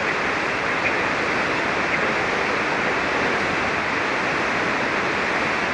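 Steady hiss and static from a shortwave receiver tuned to an SSB voice channel on the 40-metre band, with no signal on the frequency between transmissions.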